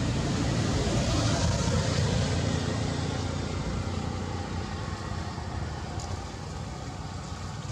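Steady outdoor background noise: a low rumble with a hiss over it, swelling slightly about a second in and easing off later.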